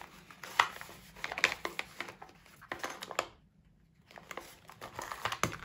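Plastic tool pouch crinkling as hands open it and rummage inside, in irregular crackles and small clicks, with a short pause about three and a half seconds in.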